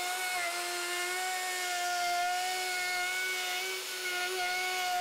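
Handheld electric router running at a steady high-pitched whine while its template-following bit trims an oval opening in wood along the edge of a template. The whine dips slightly about four seconds in.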